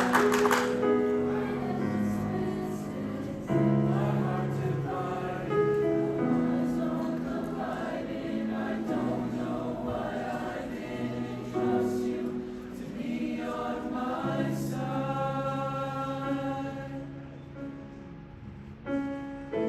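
Choir singing sustained chords that shift every second or two, dipping quieter near the end before swelling again just before the end.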